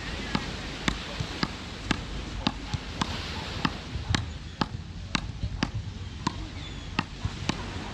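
Frescobol rally: wooden paddles hitting a rubber ball back and forth, a sharp crack about twice a second without a break.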